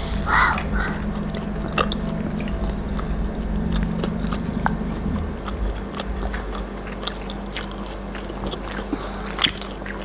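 Close-up eating sounds: several people biting and chewing crispy fried rice-paper snacks, with scattered crunches and wet mouth clicks and one sharper crunch near the end.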